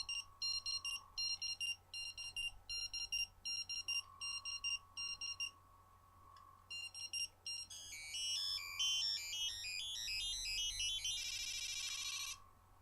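Power Rangers Lightspeed Rescue morpher toy playing its electronic sound effects: short high beeps in quick pairs, about two a second, then a quick stepping electronic tune, ending in a fast warbling tone that cuts off suddenly.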